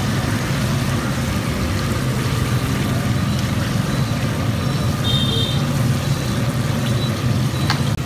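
Battered banana pieces deep-frying in a large wok of oil, a steady sizzle over a steady low rumble.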